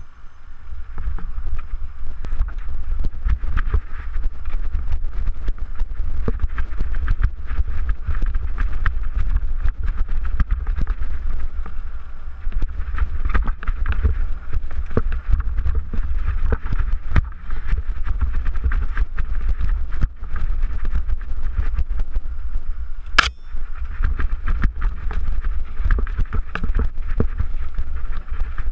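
Mountain bike riding down a rocky dirt trail: wind rushing over the microphone with a steady rumble, and constant rattling clatter and knocks from the bike over rocks and gravel. One sharp crack stands out about three-quarters of the way through.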